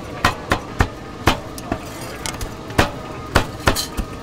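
Cleaver chopping on a thick wooden chopping board: about eight sharp, irregular chops over a steady background hum.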